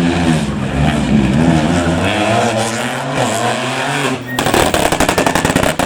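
Rally car engine revving hard, its pitch rising and falling as it works through the gears. About four seconds in, the engine note gives way to a fast, dense crackle.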